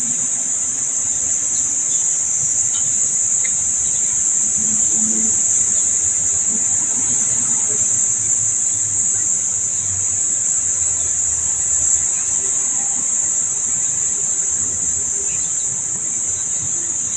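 A chorus of insects in the park trees, droning in one steady, high-pitched, unbroken sound.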